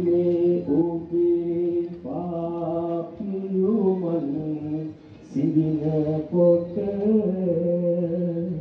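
A solo voice chanting a Sinhala Buddhist devotional verse in long, drawn-out held notes, with short breaks between phrases about two and five seconds in.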